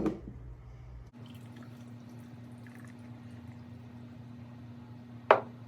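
Beer being poured from a can into a glass, a faint fizzing trickle, with one sharp knock about five seconds in.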